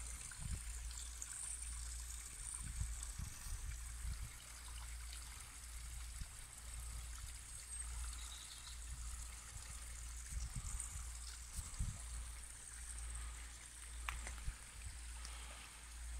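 Water trickling in a small spring-fed stream: a faint, steady trickle, with an uneven low rumble beneath it.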